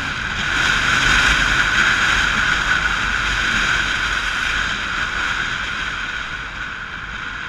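Wind rushing over an action camera's microphone on a 1982 Yamaha Virago 920 motorcycle at road speed. It swells in the first second, then slowly eases off.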